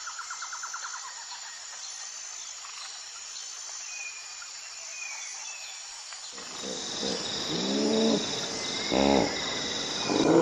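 Outdoor ambience of birds chirping and insects trilling. About six seconds in, an animal's low, pitched calls start, rising and falling in tone and getting louder.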